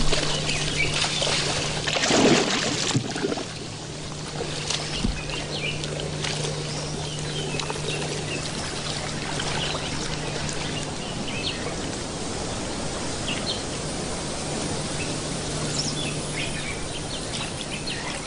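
Water splashing and trickling as mating crocodiles move in shallow water, with a louder splash about two seconds in. Scattered bird chirps sound throughout.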